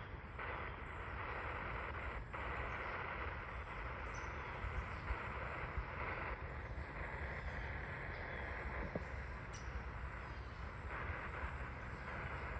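Spirit box radio sweeping through stations, giving a steady hiss of static with brief breaks and faint ticks as it jumps between frequencies.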